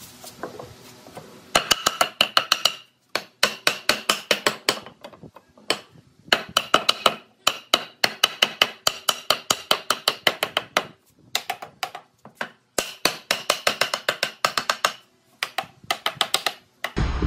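Wooden mallet tapping rapidly on a wooden frame, knocking a glued mitre corner closed: quick runs of sharp wooden knocks, about eight a second, with short pauses between runs.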